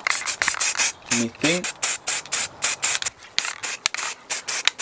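Aerosol spray paint can hissing in many short bursts in quick succession, spray-painting a plastic steering wheel trim piece.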